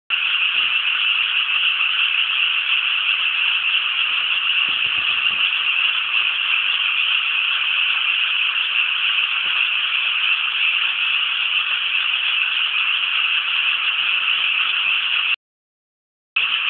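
A dense chorus of many frogs calling at once from flooded rice paddies, a steady high-pitched croaking wall of sound. It cuts out abruptly for about a second near the end, then resumes.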